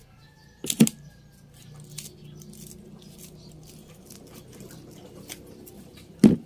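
The plastic-wrapped root ball of an air-layered branch being handled and cut with a knife: faint scratching and crinkling, with two sharp knocks, one about a second in and one near the end.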